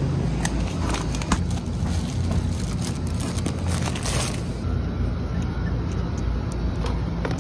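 Plastic packaging crinkling and clicking as groceries are handled and put into a plastic shopping basket, over a steady low hum.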